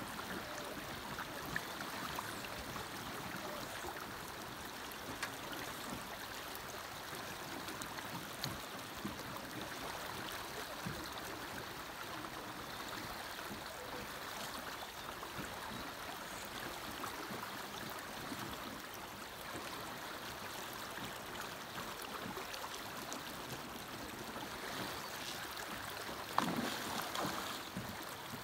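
Steady rush of fast river current, with a few faint clicks and a brief louder burst near the end.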